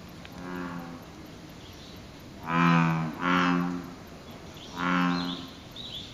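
American bullfrogs calling from a pond: deep, cow-like calls, each lasting under a second. A faint call comes first, then three loud ones, two back to back around the middle and a third about five seconds in.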